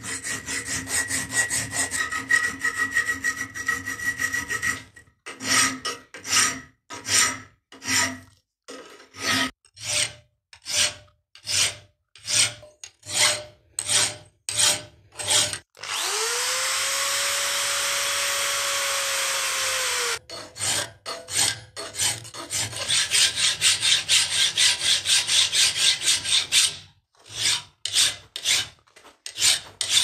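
A steel knife blank in a bench vise being worked by hand. It opens with rapid hand sawing that makes the metal ring. Then come separate hand-file strokes about one a second. About halfway through, a drill fitted with a grinding stone spins up, runs steadily for about four seconds and winds down, and then fast file strokes follow.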